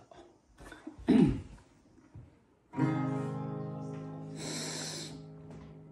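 Acoustic guitar: a chord strummed once about three seconds in, left ringing and slowly fading. Just before it there is a brief, louder voice sound that falls in pitch.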